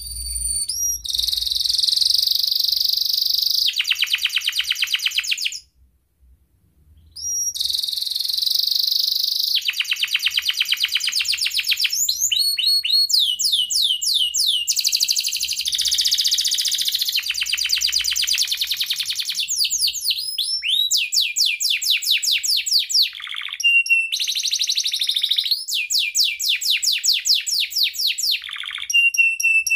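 Domestic canary singing: long phrases of fast rolling trills, runs of quick repeated notes and clear whistled notes. The song stops for a second or two early on, then runs on without a break.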